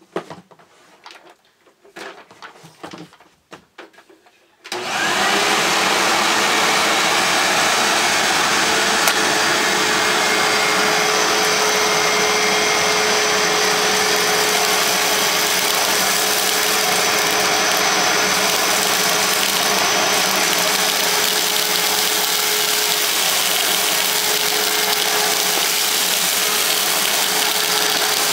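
A few soft clicks and knocks, then about five seconds in a Hoover WindTunnel self-propelled bagless upright vacuum (model U6630) switches on and runs steadily, its motor tone rising briefly as it spins up, with a higher whistle joining a few seconds later.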